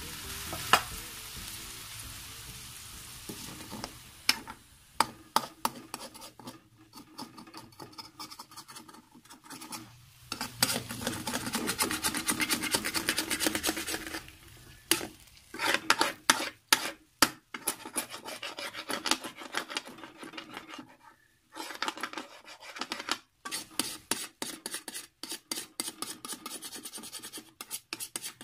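Metal ladle scraping and stirring in a steel wok of frying chicken and potatoes, loosening the browned chicken skin stuck to the pan after a splash of water. A sizzle at first, then many repeated rasping scrapes.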